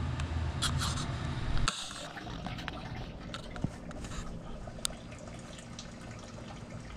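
Water poured from a container into a potted bonsai tree's soil, splashing and dripping, over a steady air-conditioner hum. The background changes abruptly about a second and a half in, leaving faint trickles and small clicks.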